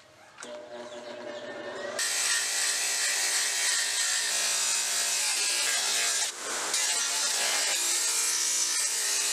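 A power tool cutting wood. The motor starts and builds over the first couple of seconds, then bites into the wood with a loud, steady, continuous sound that eases briefly about six seconds in.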